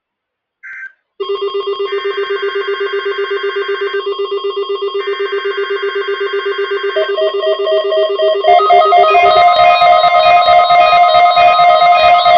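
Several weather alert radios sounding their electronic alarm tones at once, set off by a NOAA Weather Radio weekly test. A brief chirp is followed about a second in by a loud, fast-pulsing low tone, with a higher beep switching on and off in two-second blocks; more tones join from about seven seconds in and the alarm gets louder.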